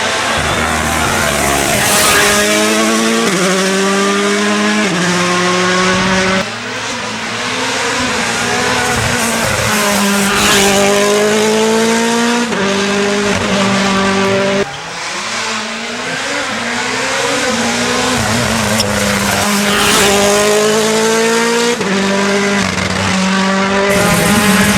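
Rally cars at full throttle, their engines rising in pitch and shifting up quickly through the gears again and again, in several back-to-back passes that cut off abruptly about six and fifteen seconds in.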